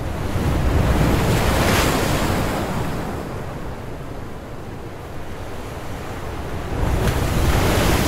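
Sea surf: waves breaking and washing up a sandy beach, swelling about a second in and again near the end.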